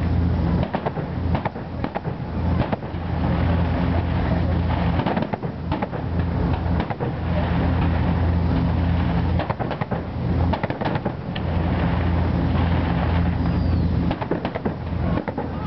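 Aerial fireworks bursting, a scattered string of sharp bangs and crackles. Under them runs a low engine-like drone that cuts in and out every couple of seconds.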